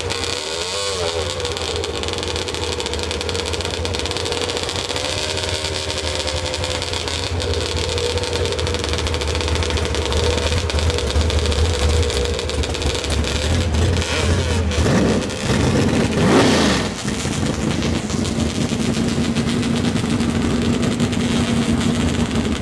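Two pickup trucks' engines running at a drag-strip start line, then accelerating hard off the line and away down the track. There is a loud surge of engine noise with changing pitch about two-thirds of the way through.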